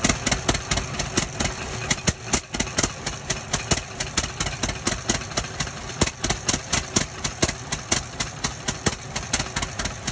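Gulden vertical single-cylinder stationary gas engine running steadily under its flat belt, with an even, sharp exhaust beat of about five pops a second.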